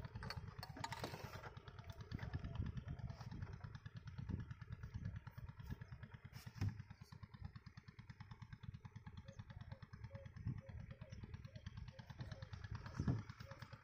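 A small engine running steadily with a rapid low putter, with a couple of light knocks, one about halfway and one near the end.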